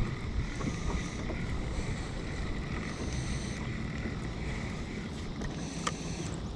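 Kayak on the water: a steady wash of water along the hull, with wind rumbling on the microphone. A single sharp tap comes near the end.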